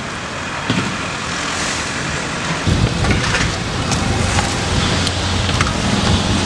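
Steady outdoor background noise like road traffic, with a deeper low rumble setting in a little before halfway and a few faint knocks.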